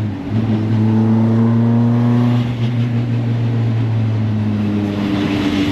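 Toyota AE86 Sprinter Trueno's 4A-GE four-cylinder engine heard from inside the cabin while driving, holding a steady note, then changing pitch about five seconds in as the revs shift.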